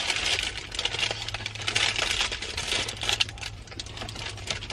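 Close-miked eating sounds: a dense stream of small crackles and clicks from chewing a filled waffle and handling its paper wrapper.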